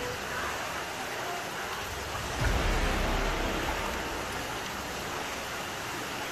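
Steady rain falling on standing floodwater, an even hiss, with a brief low thump about two and a half seconds in.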